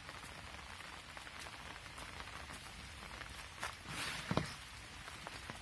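Light rain falling, with scattered separate drops ticking. About four seconds in there is a louder rustle and a low thump.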